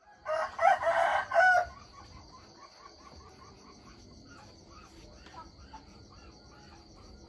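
A rooster crows once, for about a second and a half. Then a steady, finely pulsing high insect trill carries on.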